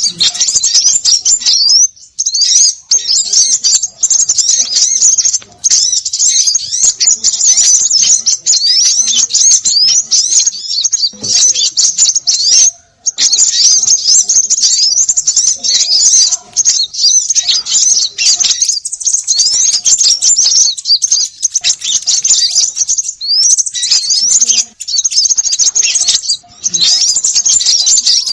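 Dense, nonstop chattering of small birds: many quick, high chirps overlap, broken by a few brief gaps. It is a 'ribut' (noisy) bird-lure call played to draw small birds in.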